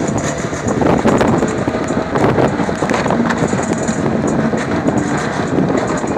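Off-road vehicle driving over a muddy, rutted dirt track: engine and road noise with wind buffeting the microphone at the open side window.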